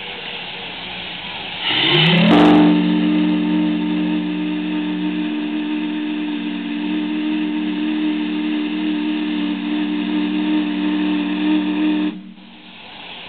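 Three-chime steam whistle blowing. It comes in about two seconds in with a quick rise in pitch, holds a steady chord of several tones for about ten seconds, then cuts off suddenly.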